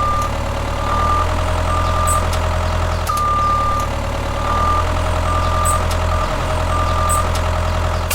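Truck engine running steadily while a reversing alarm beeps over and over on one high pitch.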